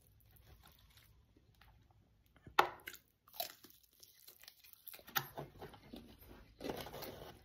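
Chewing and crunching food, with irregular short crunches; the sharpest comes about two and a half seconds in.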